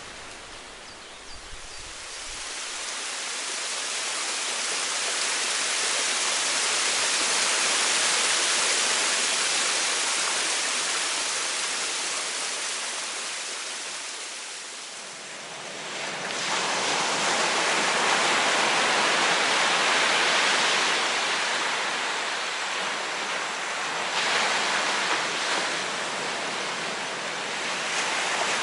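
Rushing water, swelling up and slowly dying away over the first half, then coming back as a steadier rush from about sixteen seconds in.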